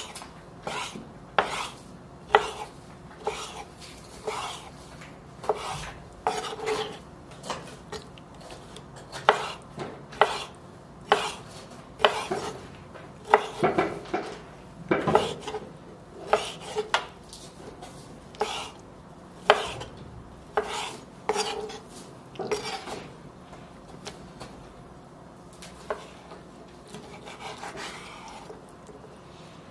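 Chef's knife slicing raw liver on a wooden cutting board, the blade knocking on the board with each cut, about once a second, more sparsely near the end.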